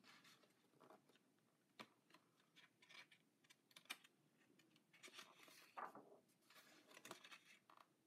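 Faint rustling of paper pages being turned by hand in a thick illustration book, with a few soft clicks as pages fall and are handled.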